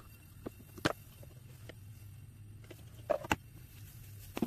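A few sharp clicks and knocks of camping gear being handled: small metal fuel tins and stove parts picked up and set down, about a second in and twice just after three seconds, over a low steady hum.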